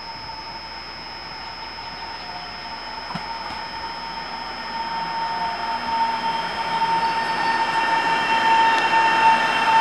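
Taiwan Railways EMU700 electric multiple unit approaching along the platform, its running noise growing steadily louder, with a steady high whine that strengthens as it nears.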